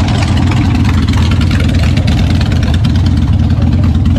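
Motorcycle engine running loud and steady with a rapid, even pulse, just after being fired up.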